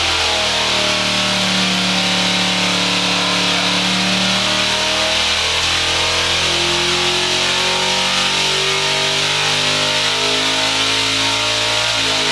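Supercharged 400 cubic-inch small-block Chevrolet V8 running on an engine dyno, held at a fairly steady speed with only slight shifts in pitch, heard through the dyno cell's glass window.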